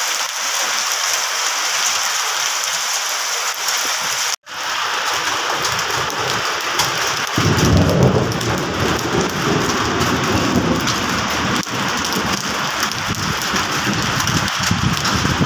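Heavy hail and rain pelting down: a dense, steady hiss that drops out for an instant about four seconds in. From about seven seconds in, a deep rumble joins it.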